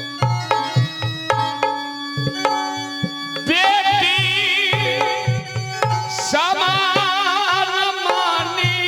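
Folk stage-drama accompaniment: a hand drum beats under steady held tones, then about three and a half seconds in a loud melody line with heavy vibrato comes in over the drum.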